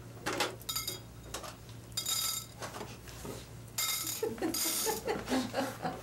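A homemade noisemaker, a metal can with small hard objects inside, shaken in several short rattling bursts with a metallic ring, to test whether a baby turns to high-pitched sound. A baby vocalizes near the end.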